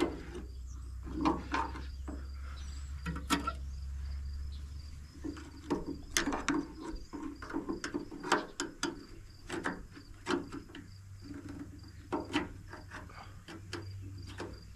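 Scattered clicks, taps and scrapes of metal on the starter solenoid terminals of a 1947 Case VAC tractor as it is jumped by hand, with no cranking: the starter is getting no connection, and the owner suspects a bad starter. A low hum runs under the first five seconds, and a faint, steady high chirping sounds throughout.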